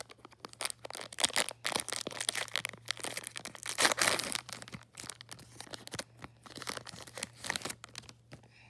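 Foil wrapper of a trading-card pack being torn open and crinkled. It makes a run of crackling rustles, loudest about four seconds in, and dies away near the end.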